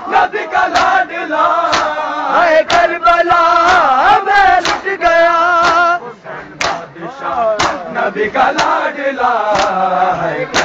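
Men's voices chanting a Shia nauha (mourning lament) in chorus, with sharp hand slaps of matam (chest-beating) keeping time about once a second.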